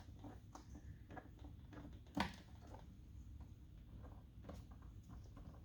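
Faint scattered clicks with one sharper click about two seconds in, from a small bolt being worked loose by hand inside a truck door, over a low steady hum.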